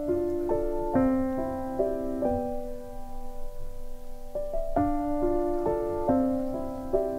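Background piano music: single notes and sustained chords played at a slow, even pace, with the phrase repeating about halfway through.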